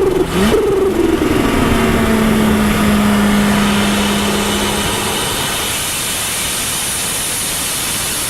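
Turbocharged car engine coming off a rev: a turbo whistle falls in pitch near the start, a second shorter falling whistle follows about a second in, then the engine settles to a steady note that fades into a steady running hum.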